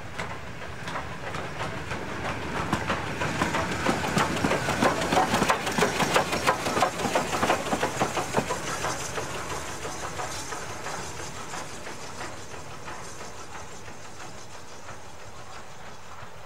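BR Standard Class 2MT steam locomotive and brake van passing, wheels clicking quickly over the rail joints with a hiss of steam. It is loudest about five seconds in and fades as it runs away.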